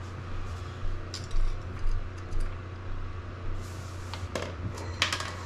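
Scattered small clicks and clinks of an oil dipstick cap being unscrewed, pulled and handled on a 110cc pit-bike engine during an oil-level check, with a brief hiss about three and a half seconds in and the sharpest clicks near the end, over a steady low hum.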